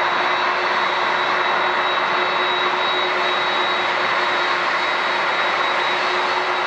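Boeing 737-800's CFM56-7B turbofan engines at takeoff thrust as it lifts off and climbs out: a steady jet roar with a thin high whine.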